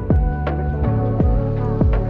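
Background music: sustained chords over a beat of low thuds that drop in pitch on each hit.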